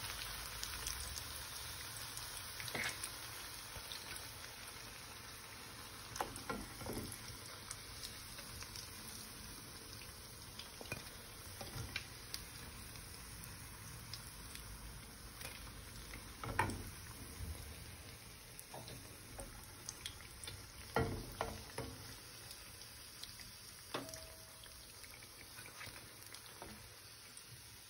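Oil sizzling steadily around battered chicken skewers frying in a pan, slowly dying down, with a few light knocks of a spatula against the pan as the pieces are lifted out.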